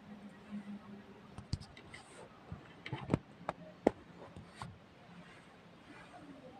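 Budgerigars in a wire cage making a scattering of small sharp clicks and taps, a handful over a couple of seconds in the middle, over a faint steady low hum.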